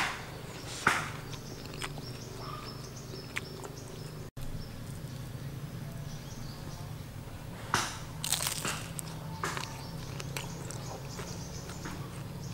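Crisp bites into a deep-fried spring roll, with crunching and chewing: one crunch at the start, another about a second later, and a cluster of crunches about two-thirds of the way through, over a steady low hum.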